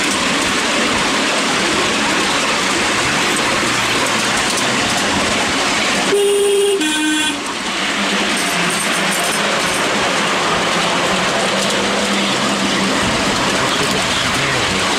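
Miniature railway train running with a steady rushing rattle of wheels on track. About six seconds in, the miniature class 73 locomotive sounds its two-tone horn, a higher note and then a lower one, each about half a second long.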